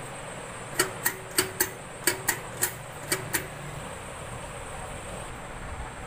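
About nine sharp clicks or taps, mostly in quick pairs, over about two and a half seconds starting near one second in, against a steady hiss.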